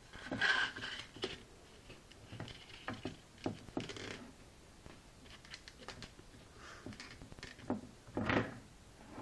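Scattered handling noises: small knocks, clicks and rustles of objects being moved and set down, the loudest about half a second in and again about eight seconds in.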